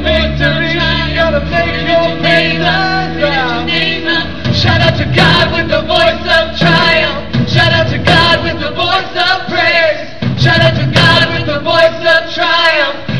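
Live contemporary Christian worship band: female and male voices singing with guitars, bass guitar and drums. The drums come in with steady hits about four seconds in, filling out the sound.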